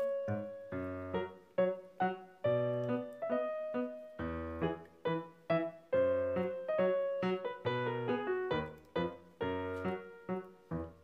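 Background piano music: a melody of evenly paced struck notes, each fading away, over low bass notes.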